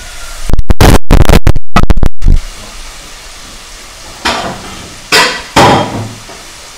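Mandazi dough frying in a pot of hot oil, a steady sizzle. About half a second in comes a very loud, distorted crackle lasting nearly two seconds, and later three short knocks.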